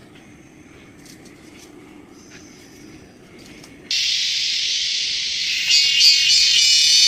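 Quiet outdoor ambience with a low hum, then about four seconds in a loud, steady, high-pitched insect chorus cuts in abruptly, like cicadas.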